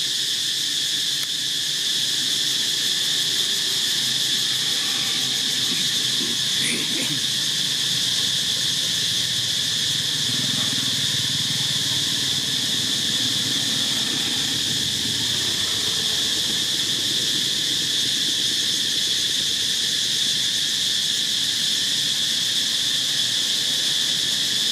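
Insect chorus: a constant high-pitched drone at a couple of layered pitches, steady in level throughout.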